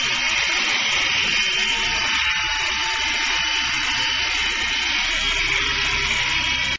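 H-Q Alacrity 820 three-channel RC toy helicopter in flight: a steady, high-pitched whine from its small electric motors and spinning rotor blades.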